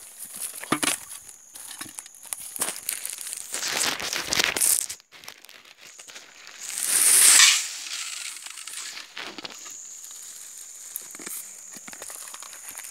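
Dry leaves, twigs and brush crackling and rustling underfoot and against the phone as someone walks through scrub, with the scrape and bump of the phone being handled. About seven seconds in there is a single loud rushing noise lasting about a second.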